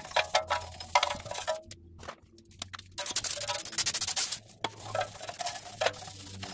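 A brush scrubbing the rear brake backing plate in rough strokes, then an aerosol can of brake cleaner sprayed onto it in a loud hiss lasting about a second and a half, about three seconds in, with shorter sprays and scrubbing after.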